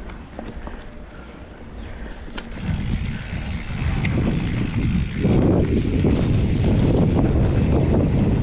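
Wind buffeting the microphone, a fluttering rumble that grows louder about a third of the way in and again past halfway, with a few small clicks and rattles.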